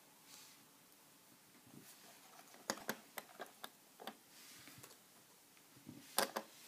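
Faint handling sounds: a quick run of light clicks and taps about three seconds in and another cluster near the end, with soft rustling of plush fabric, as stuffed toys are moved about and set down on a wooden desk.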